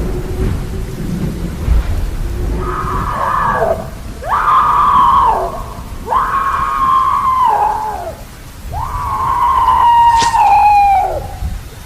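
Four long wailing cries, one after another: each rises quickly, holds, then falls away at its end. They sound over a low rumble of thunder and rain.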